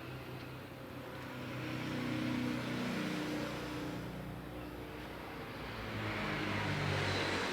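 Motor vehicle engines in the background, swelling louder twice as they pass over a steady low hum.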